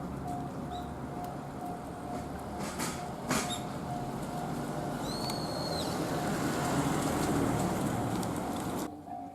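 A train on the JR Tōkaidō Main Line passing over a level crossing. Its rumble builds to a peak and cuts off suddenly near the end, while the crossing's warning bell rings over and over.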